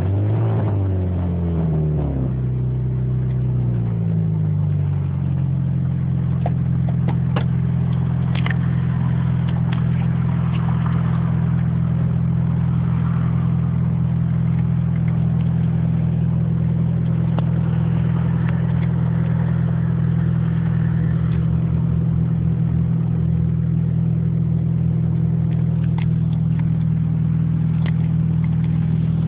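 Honda B16 DOHC VTEC four-cylinder engine with its revs falling back over the first few seconds, then idling steadily. The engine has an exhaust leak at the front.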